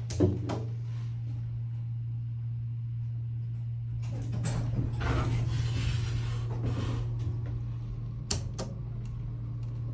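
Hydraulic elevator's sliding cab doors opening at the ground floor: a sharp knock just after the start, then about three seconds of rushing door travel from about four seconds in, and a sharp click near the end, over a steady low hum.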